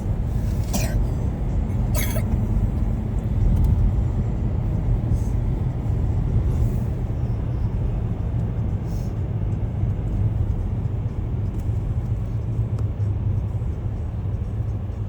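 Steady low road and engine rumble heard from inside a moving car's cabin, with two short clicks in the first couple of seconds.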